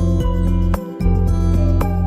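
Instrumental background music with a steady pulse and a strong bass.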